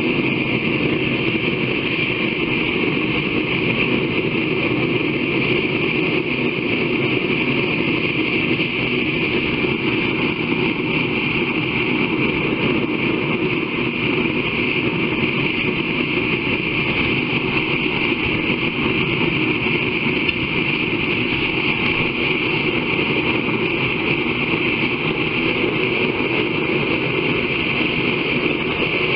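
Blacksmith's forge running with a steady, unbroken rushing noise while a blade heats for normalizing.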